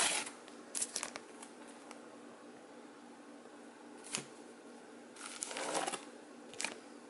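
Plastic comic-book bags crinkling and rustling as bagged comics are picked up and laid down on a pile, in several short bursts, the longest about five seconds in. A faint steady hum runs underneath.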